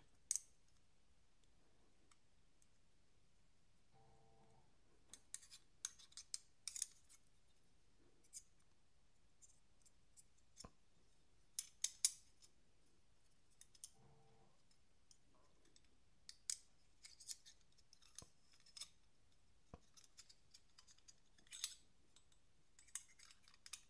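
Faint, scattered small metallic clicks and ticks of folding-knife parts being handled and fitted together during reassembly, some in quick clusters of two or three.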